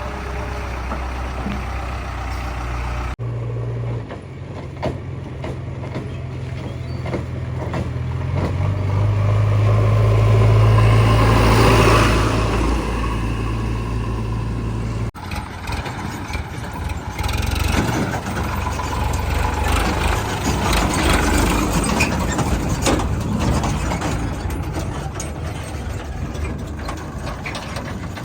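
Diesel engines of a backhoe loader and tractor running, swelling to a loud rev around the middle and then easing back. The sound shifts abruptly twice where shots are joined.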